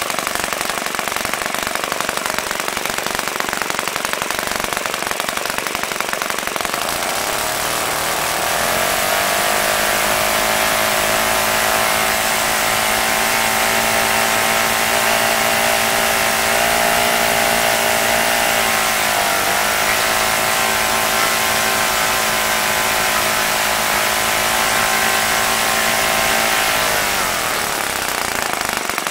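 OS FS-120 Surpass four-stroke glow engine swinging a 15x8 propeller on a test stand. It runs at a lower speed, is opened up to a steady high-speed run about eight seconds in, dips briefly just before halfway, and is throttled back down near the end. It is running on newly replaced bearings, with no bearing noise to be heard.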